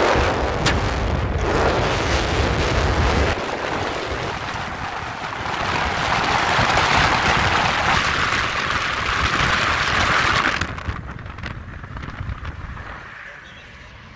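Wind and road noise of a car driving, a steady rush with low rumble and hiss. About ten and a half seconds in it drops suddenly to a much quieter hum.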